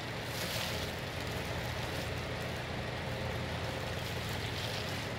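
Steady low hum with an even hiss over it: constant background machine or room noise.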